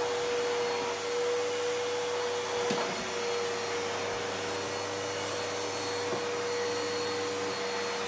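Red canister vacuum cleaner running steadily with a constant motor whine while its floor nozzle is pushed over a carpet.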